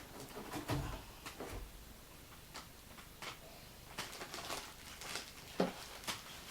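Cardboard box and packaging being opened and handled: scattered taps, clicks and rustles, with a sharper knock about five and a half seconds in.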